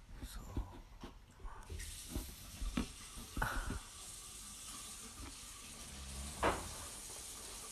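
Water running steadily from a tap, starting about two seconds in after a few light knocks, with two short sharp sounds over it, the louder one near the end.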